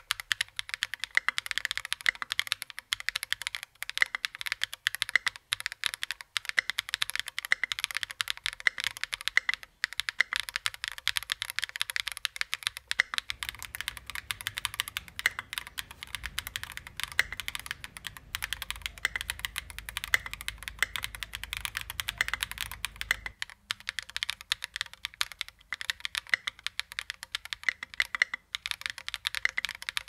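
Fast, continuous typing on a Helix Lab AARU 65, a gasket-mounted keyboard with an aluminium plate and 45 g switches in nylon housings with nylon stems: a dense run of many key clicks a second. Between about 13 and 23 s the clicks come over a faint low rumble.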